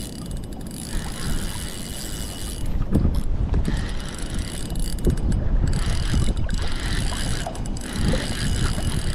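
Spinning reel being cranked to reel in a hooked fish: the handle and gears turning, with a few sharper clicks. Wind rumbles on the microphone.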